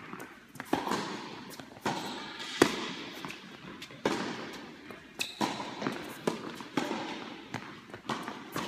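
Tennis balls struck by racquets and bouncing on an indoor hard court: a dozen or so sharp pops at uneven spacing, each ringing on in the hall's echo.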